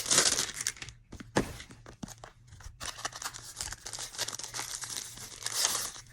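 Doll-box packaging being torn open and crinkled by hand, in irregular rustling and ripping bursts, loudest at the start and again near the end.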